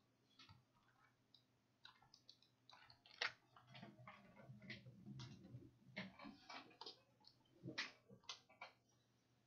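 Faint, scattered computer mouse clicks at irregular intervals, over a faint low hum.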